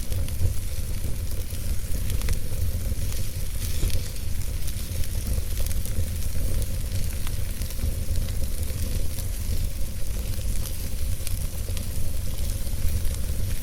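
Campfire burning, with frequent small crackles and pops over a steady hiss and a strong low rumble.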